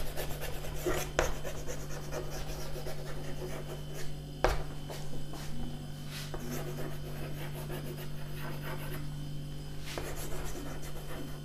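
Chalk writing on a chalkboard: scratchy strokes with a few sharper taps as a line of words is chalked up, over a steady low electrical hum.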